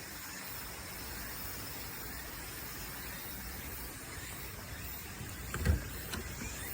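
Steady rush of running water, an even hiss, with a single low thump near the end.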